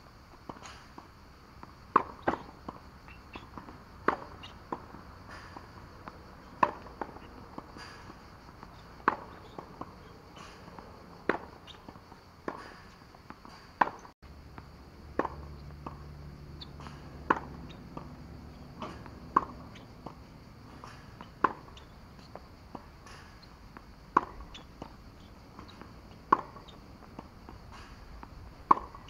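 Tennis rally: a racket striking the ball and the ball bouncing on a hard court, giving sharp knocks every second or so, the loudest about every two seconds.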